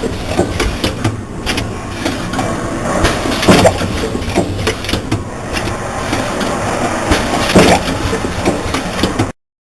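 Automatic yogurt-cup filling and sealing machine running: a steady mechanical clatter of small knocks, with a louder clunk about every four seconds as the machine cycles. The sound cuts off abruptly near the end.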